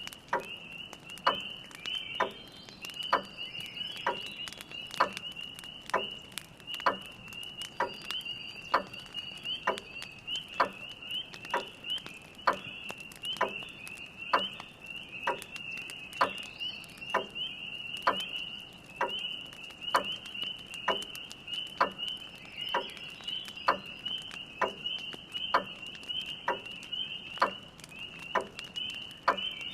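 A chorus of spring peepers calling in a steady high trill, with a grandfather clock ticking a little under once a second and a wood fire crackling faintly.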